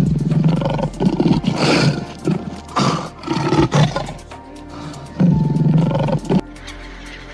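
A large animal roaring and growling in about four bouts, the first right at the start and the last ending a little past six seconds in, over steady background music.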